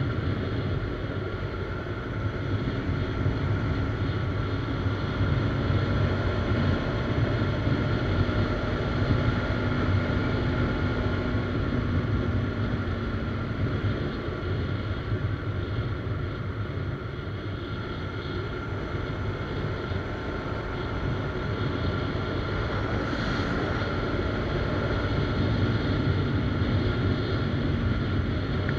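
Motorcycle riding along at steady road speed: the engine running under a heavy low rush of wind on the action camera's microphone. It eases a little midway and picks up again near the end.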